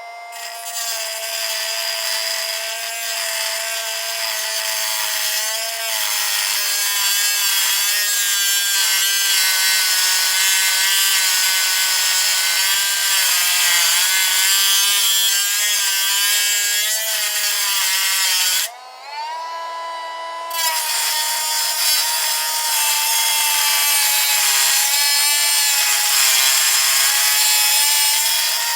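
Dremel rotary tool with a cutoff wheel grinding into a padlock's steel shackle: a high motor whine that sags and wavers in pitch under load, over a harsh grinding rasp. About two-thirds through, the wheel comes off the metal briefly and the motor runs freely at a higher, cleaner pitch for a couple of seconds before the grinding starts again.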